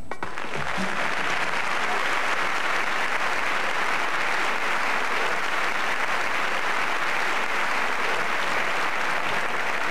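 Studio audience applauding steadily, beginning as the show band's music stops right at the start.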